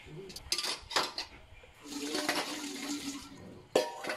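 Washing up at a stainless-steel sink: water running, with stainless pots, a colander and utensils clattering as they are set in a wire dish rack. The loudest clatter comes near the end.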